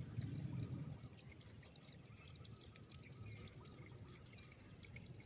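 Shallow rice-paddy water trickling and lapping faintly, with many small ticks and pops; a little louder in the first second.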